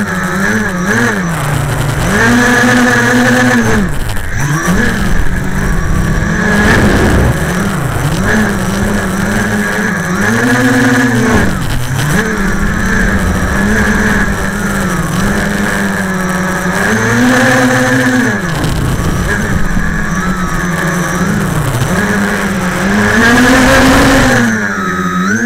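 Quadcopter motors and propellers, heard close up from a camera mounted on the airframe: a loud, steady buzzing whine that rises and falls in pitch several times as the throttle changes.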